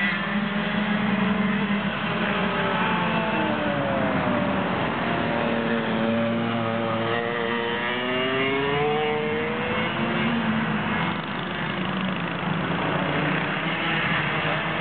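Several go-kart engines running together on a circuit, their overlapping pitches rising and falling as the karts accelerate and slow.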